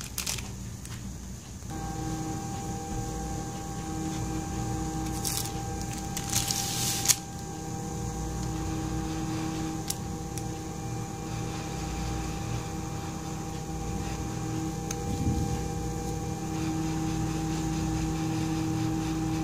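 A hot-air rework station's blower switched on about two seconds in and running as a steady hum with several held tones. Short bursts of handling clatter come around five and seven seconds in.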